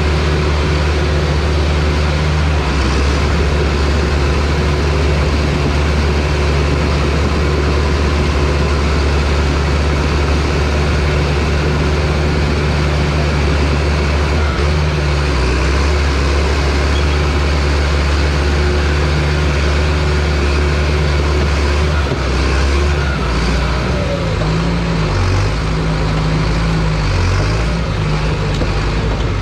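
Bulldozer's diesel engine running hard and steady. About two-thirds of the way through, its pitch drops and begins to waver up and down.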